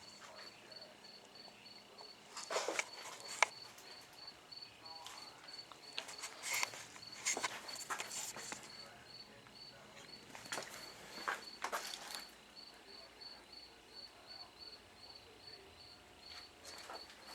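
An insect chirping in a steady high-pitched pulse, about three chirps a second, with several louder bursts of rustling and handling noise over it.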